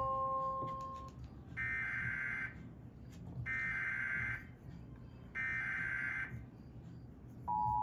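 Emergency Alert System header: three roughly one-second bursts of buzzing digital data tones, a second apart, then near the end the steady two-tone attention signal begins. Together they announce a Civil Danger Warning.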